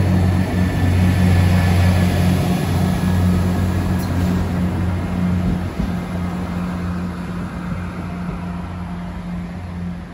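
Irish Rail 22000-class InterCity diesel multiple unit pulling away from the platform. Its diesel engines give a steady low hum that fades as the train draws off.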